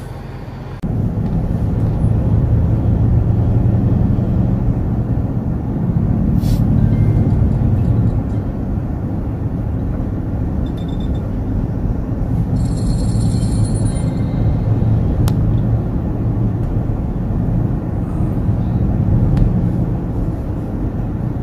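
Steady low road and engine rumble inside the cabin of a moving car. About two-thirds of the way through there is a brief high-pitched electronic tone.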